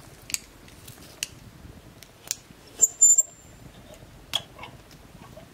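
Metal clicks and clinks from a hurricane oil lantern being handled while its glass globe is lowered over the lit wick. The loudest clank, with a brief high squeak, comes about three seconds in. A campfire burns alongside.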